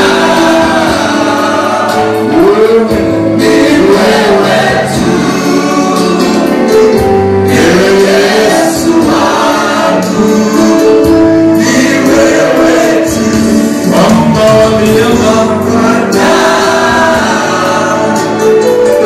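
Gospel music: a choir singing over a full instrumental backing, loud and continuous.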